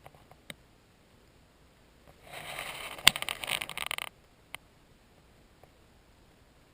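A scraping rustle lasting about two seconds in the middle, with a sharp click within it and single clicks before and after.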